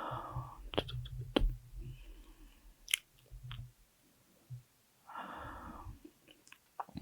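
Slow, heavy breathing close to the microphone: a long breath at the start and another about five seconds in, with several sharp wet mouth clicks in between. A low rumble sits under the first couple of seconds.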